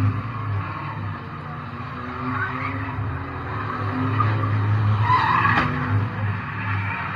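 Race car's engine running, heard from inside the cabin, with tyres squealing in short bouts, loudest about five seconds in, and a brief knock just after.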